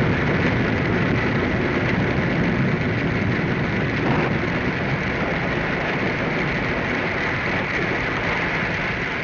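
Radio-drama storm sound effect: a steady wash of heavy rain and wind over a low rumble, slowly easing off.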